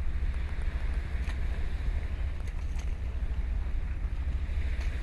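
Wind buffeting the microphone in a steady, fluttering low rumble, over a soft hiss of small waves on the open sea.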